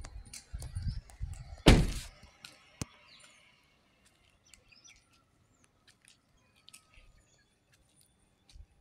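Low rumbling and a single loud thump about two seconds in, then quiet with small birds chirping and scattered faint clicks.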